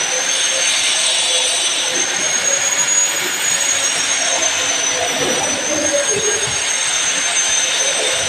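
Metal lathe running with a steady rushing noise and a thin high-pitched whine.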